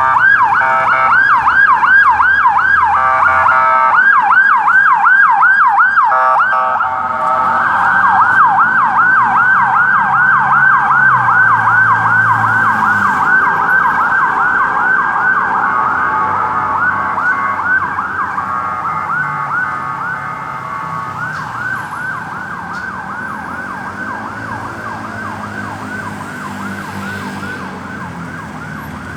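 Ambulance siren on a fast yelp, rising and falling about three to four times a second. It is chopped into short bursts for the first few seconds, then runs continuously and grows fainter in the second half as the vehicle moves away.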